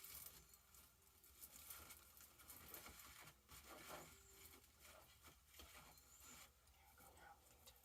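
Very faint rustling and scattered small clicks of craft materials being handled, close to silence.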